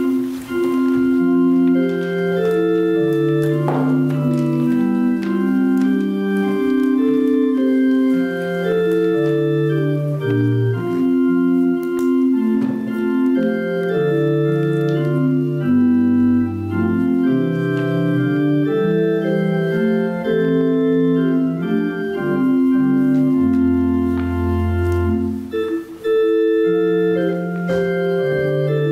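Organ playing a slow piece in held chords over a moving bass line, with a deep low note sounding about three-quarters of the way through.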